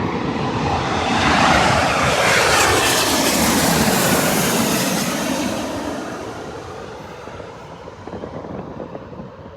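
Twin-engine widebody jet airliner passing low overhead: a loud rush of jet engine noise that peaks in the first few seconds, with a falling whine as it goes over, then fades away.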